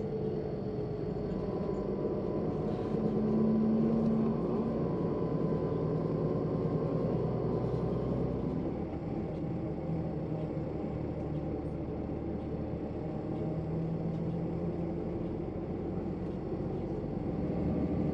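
Tour coach engine and road noise heard from inside the moving coach, the engine note shifting in pitch a few times as it drives.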